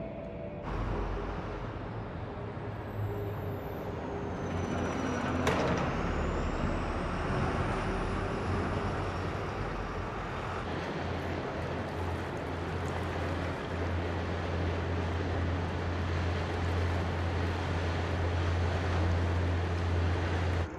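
Outdoor engine rumble: a low, steady drone under constant noise, strongest in the second half, where a diesel harbour ferry is passing on the river. A single short, sharp hiss comes about five seconds in.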